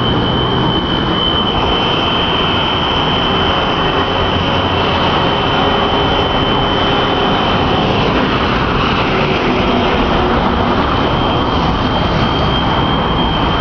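A continuous electronic alarm sounding one steady high tone, which fades somewhat midway and comes back stronger near the end, over a loud, steady rushing roar.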